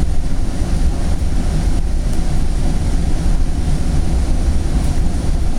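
Steady low rumble of a Northstar commuter train heard from inside the passenger car as it rolls slowly out of a station.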